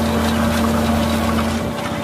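Tractor engine running steadily under load while the tines of an Amazone Cenus 3003 Super cultivator tear through dry soil with a rushing hiss. Near the end this switches to the fast, regular chugging of a walking tractor's engine.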